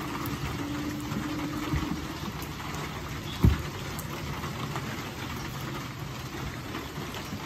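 Steady low hum and hiss, with a single sharp thump about three and a half seconds in as a plastic 2.5-gallon bucket is handled and pulled out of a Trasharoo trash bag.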